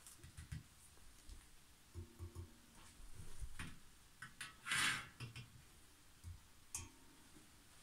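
Faint scattered clicks and light knocks from handling the white tubular metal frame of a flat-pack trolley during assembly, with one short, louder scrape about five seconds in.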